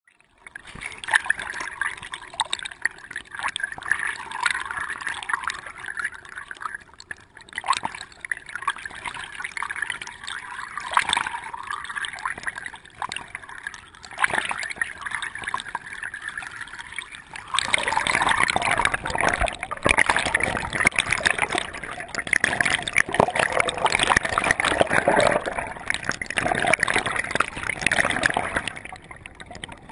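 River water lapping, trickling and splashing close up at the waterline of a rowboat as the oars dip and pull through the water. About two-thirds of the way through the splashing grows louder and busier.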